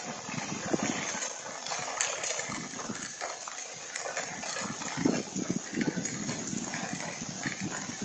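Wind-driven rain of a tornadic storm picked up by a Ring security camera's microphone. It is a steady hiss, with frequent irregular knocks and thumps of drops and gusts striking the camera.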